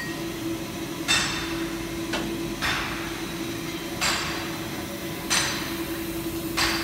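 Sharp metallic strikes on steel, each ringing briefly, about one every second and a half. Under them a steady hum from the running automatic seam welding machine sets in at the start.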